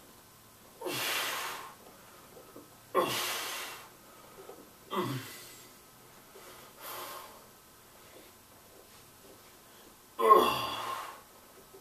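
A man's heavy breathing under the effort of barbell bench-press reps: five forceful exhales, each opening with a short grunt that drops in pitch. They come about two seconds apart, with a longer pause before the last and loudest one.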